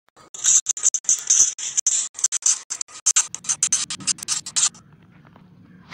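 Pen scratching rapidly across paper in many quick strokes, like fast handwriting. The strokes stop a little before five seconds in, leaving a faint low hum.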